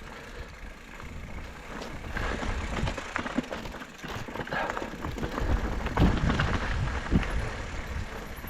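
Mountain bike rolling over a rough, rocky dirt trail: tyre rumble with irregular knocks and rattles from the bike.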